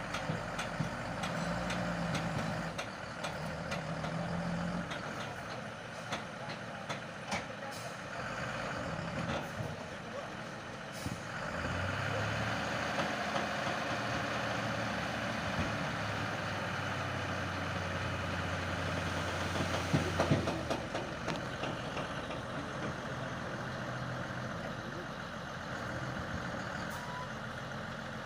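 Eicher tipper truck's diesel engine running while its hydraulic hoist raises the body to tip out a load of soil. The engine note steps up about twelve seconds in and holds steady for about eight seconds before easing back.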